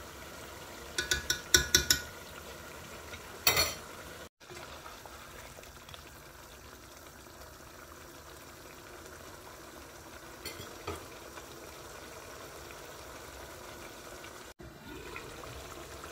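A wooden spoon stirring a thick chicken-and-potato curry in a large pot over a steady low simmering hiss, with a quick run of sharp knocks against the pot about a second in, another near three and a half seconds, and a couple of fainter ones later.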